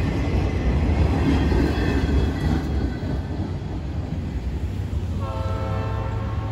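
Freight cars rolling past on the rails, the wheels rumbling with a light high squeal. About five seconds in, a locomotive horn blows once for about a second and a half.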